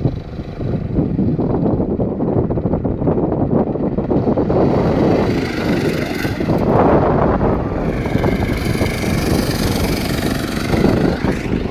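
Go-kart engine running and revving hard as the kart spins donuts through wet mud, getting louder and brighter about halfway through as it comes close. The engine pitch rises and falls in the last few seconds, with a hiss of mud and water sprayed up by the wheels.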